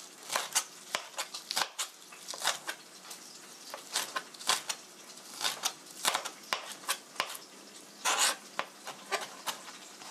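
Chef's knife mincing onion on a plastic cutting board: quick, irregular knocks of the blade on the board, several a second, with one longer, noisier stroke about eight seconds in.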